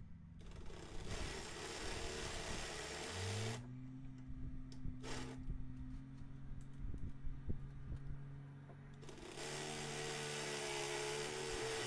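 Half-inch electric drill running with a bit boring into steel to open a bolt hole to 1/2 inch. The motor spins up about three seconds in and then holds a steady speed. The bit is not cutting the metal well enough, so a better metal drill bit is wanted.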